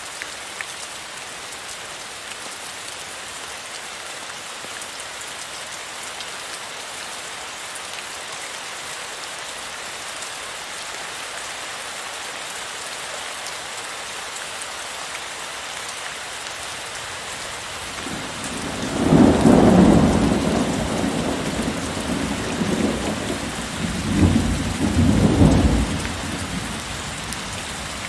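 Heavy rain falling steadily, with a roll of thunder coming in about two-thirds of the way through, rumbling in two swells before fading back under the rain.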